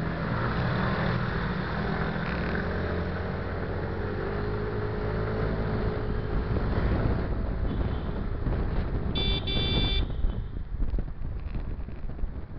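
MBK Tryptik three-wheeled scooter pulling away from a stop, its engine rising in pitch as it accelerates through the first several seconds. As speed builds, wind buffets the microphone, and a brief high tone sounds about nine seconds in.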